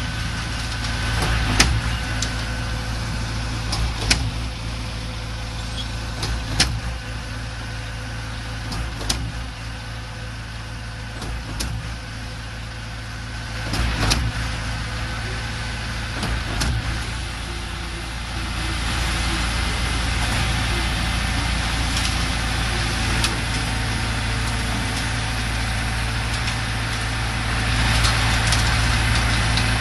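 Diesel engine of a concrete mixer-pump running steadily, with sharp knocks about every two and a half seconds through the first half. About eighteen seconds in, the machine gets louder and noisier and stays that way.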